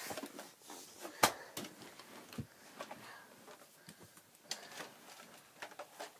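Mega Nerf blaster firing: one sharp snap about a second in, the loudest sound, followed by a few softer clicks and the rustle of handling.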